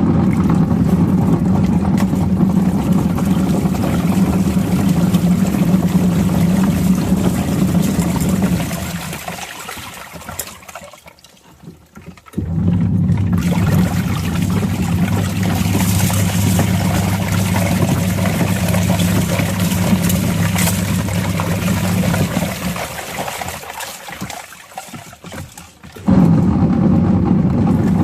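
Washing machine running with water churning in the drum over a steady motor hum. It winds down to a stop and starts up again twice, as the wash cycle pauses and restarts its agitation.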